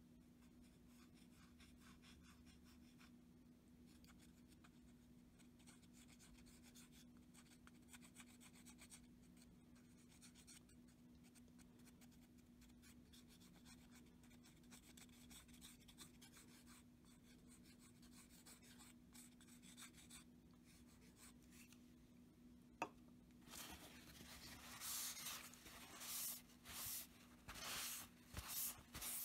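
Faint scratching of a plastic glue-bottle nozzle rubbing over a cedar knife handle as glue is spread onto the wood, over a steady low hum. About 23 seconds in a sharp click, then a run of louder rustles as the knife is moved about on the paper.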